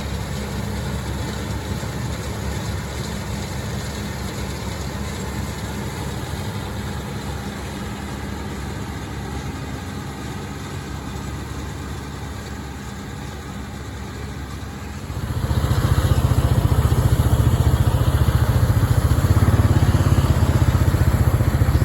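John Deere tractor's diesel engine running steadily while it pulls a John Deere 458 round baler through a hay field, growing sharply louder about fifteen seconds in.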